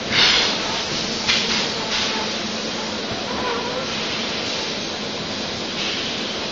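Extrusion blow molding machine and bottle conveyor line running with a steady mechanical din. Short hisses of compressed air cut in: the loudest right at the start, another about a second later, and one more near the end.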